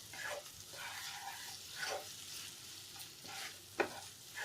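A utensil stirring and scraping a thick mixture of cooked rice, onion and tomato in a hot kadhai, with a faint sizzle underneath. Several short scraping strokes, spaced unevenly, with a sharper knock a little before the end.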